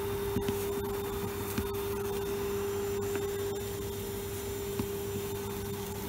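Bee vacuum motor running with a steady hum at one pitch, with a few small clicks and rubs as a gloved hand works through the comb in the rotten log.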